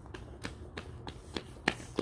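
A child's running footsteps in flip-flops slapping on a concrete sidewalk, about three steps a second, getting louder as he comes closer.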